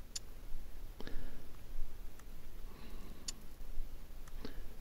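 About five short, sharp clicks at uneven intervals from tapping at a roulette betting table on a phone touchscreen, as the player tries to place a chip on a number.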